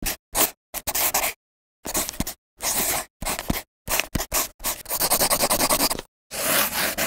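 Graphite pencil scratching on paper in a string of short separate strokes and scribbles, each cut off cleanly into silence. About two-thirds through there is a longer, fast back-and-forth scribble.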